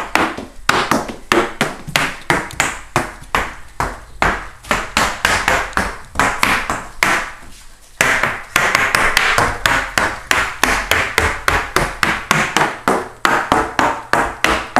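A toddler's hard-soled shoes clacking on a hardwood and tile floor as the child walks: quick, even footsteps about two to three a second.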